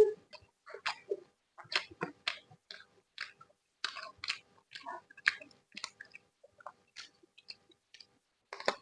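A person chewing food close to the microphone, with irregular short mouth clicks and smacks about one or two a second and a louder cluster near the end.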